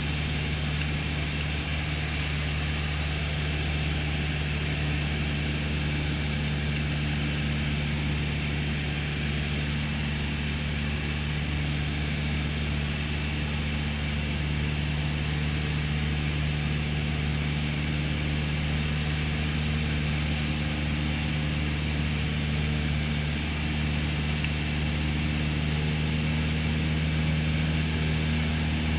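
Piper single-engine light aircraft's piston engine and propeller droning steadily in flight, heard from inside the cabin.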